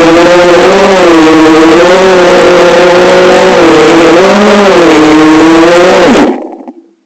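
Brushless motors and propellers of an FPV quadcopter running close to the microphone, a loud whine whose pitch rises and dips several times with throttle changes, then cuts off abruptly near the end.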